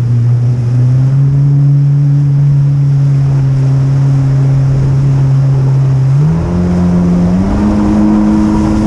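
Jet ski engine running at a steady speed, then throttled up so its pitch steps higher twice near the end.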